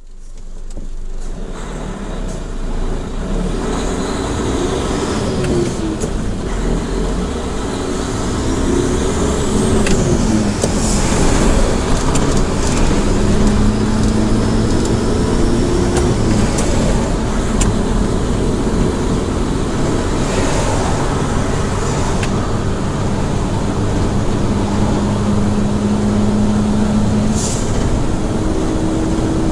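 Cab noise of a Mitsubishi Fuso heavy truck under way: the diesel engine hums steadily under road and tyre noise, its pitch stepping and gliding up and down as the truck changes speed, with a few short hisses. The sound fades in at the start.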